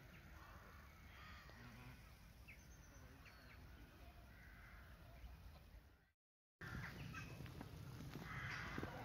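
Faint honking calls from a flock of flamingos across a pond, over a steady low rumble. After a short cut about six seconds in, crows cawing near the end.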